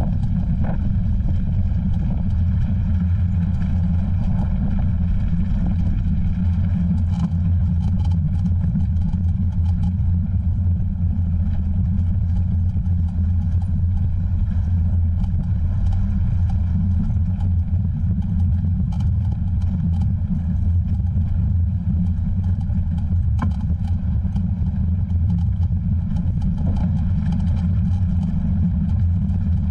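Steady low rumble of wind and motion noise on a moving camera's microphone, with a few faint clicks.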